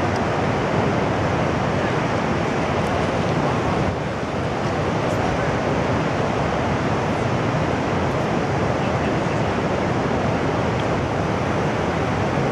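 Steady, loud rushing noise, even and unbroken throughout.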